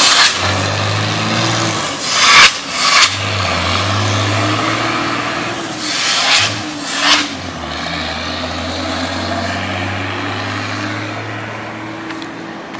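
Car engine and road noise while driving, a steady low hum under a hiss. A few short, loud bursts of noise come through, twice around two and a half to three seconds in and twice again around six to seven seconds.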